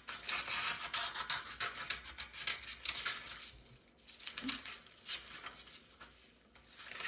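Scissors cutting construction paper, trimming it in two runs of cuts with a short pause between them.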